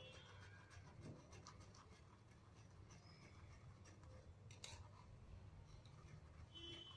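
Faint scraping and light ticks of a metal spoon stirring and pressing blended pomegranate pulp in a steel bowl, over a low steady hum.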